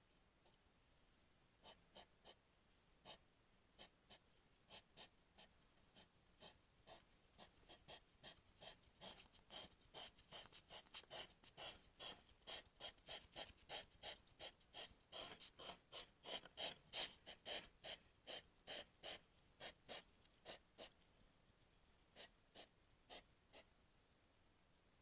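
Hedgehog huffing: a quick run of short, rasping breaths close to the microphone. They grow louder and faster through the middle and thin out towards the end.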